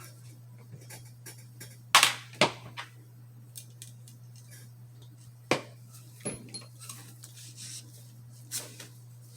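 A few sharp clicks and light knocks of revolver parts and cleaning tools being handled during cleaning, the loudest about two seconds in, over a steady low hum.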